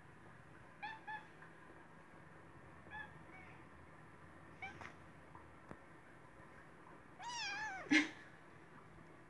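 Ginger kitten mewing: short, high-pitched mews about a second in (two quick ones), around three seconds and near five seconds, then a longer, louder mew near the end that drops sharply in pitch.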